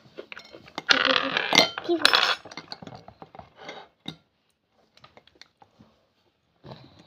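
Metal utensils and dishes clattering and clinking: a loud clatter about a second in lasting about a second and a half, then scattered light taps and clicks.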